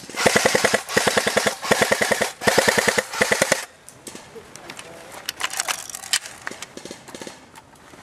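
Airsoft gun firing on full auto in several rapid bursts over the first three and a half seconds, then only fainter, scattered pops of other shots.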